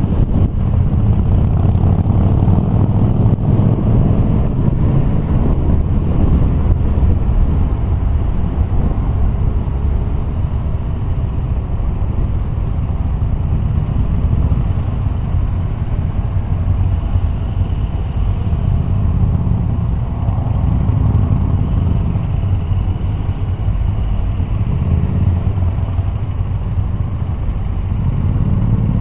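Motorcycle engine running at road speed, heard from the riding bike with wind on the microphone: a steady low rumble, a little louder in the first few seconds and again near the end.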